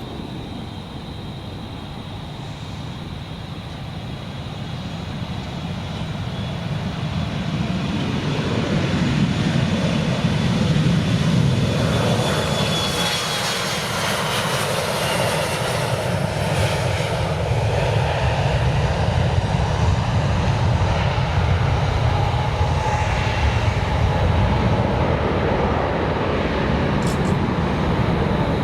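Jet airliner engines: a rumble that grows louder over the first ten seconds or so and then holds, with a thin high whine that falls in pitch in the middle.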